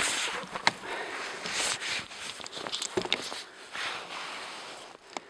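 Footsteps and shuffling, with a few light knocks.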